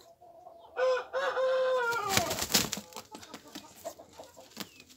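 Domestic hen squawking while being held: one long, loud call about a second in, lasting about two seconds and breaking raspily downward in pitch at its end. A few faint clicks and scuffles follow.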